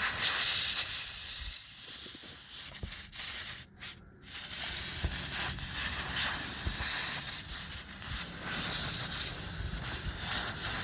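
Pressurised air hissing out of a truck tire through the reamed nail hole around the plug-insertion tool, as the rubber plug is being stuffed in to seal it. The hiss cuts out briefly twice about four seconds in.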